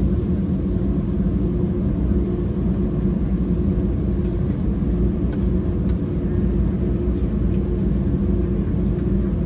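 Airbus A320's CFM56 jet engines at low taxi thrust, heard from inside the cabin behind the wing: a steady low rumble with a constant hum, unchanging in level.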